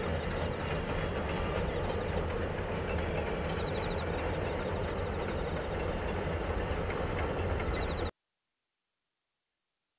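Steam-hauled passenger train crossing a steel girder bridge: a steady rumble of wheels on rails with faint rhythmic clicking. It cuts off abruptly about eight seconds in.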